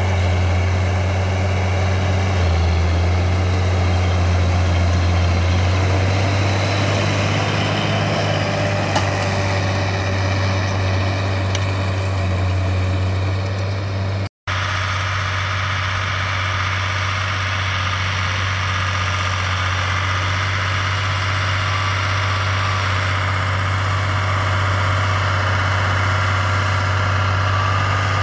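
Farm tractor diesel engines running steadily under working load. First a John Deere 7800 pulling a cultivator, then, after a brief cut about halfway through, a Zetor 12145 pulling a seed drill, with a different engine note.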